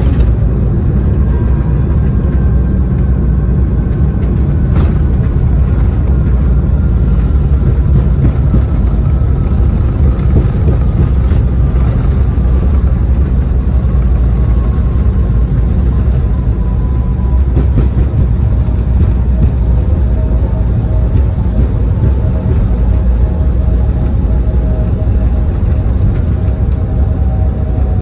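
Airliner cabin noise during the landing roll: a loud, steady low rumble of engines and wheels on the runway, jumping up sharply at the start, with faint whining engine tones that fall slowly in pitch as the aircraft slows.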